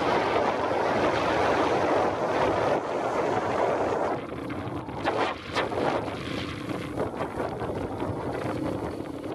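Wind buffeting the microphone of a riding motorbike, with the bike's engine and tyres on a sandy dirt track running underneath. The wind rush eases about four seconds in, and a few brief knocks follow.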